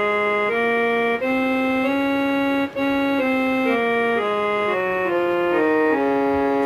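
Casio SA-47 electronic keyboard playing on its harmonium/organ tone (tone 16): a slow tune of held notes, each sustained evenly without fading until the next key. There are short breaks between notes about a second in and again near three seconds.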